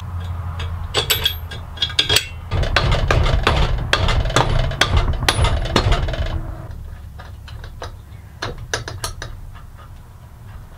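A mallet tapping and steel parts clinking as a homemade belt grinder's frame is fitted back together. It is a quick run of sharp knocks and clicks that thins out after about six seconds, over a low steady hum.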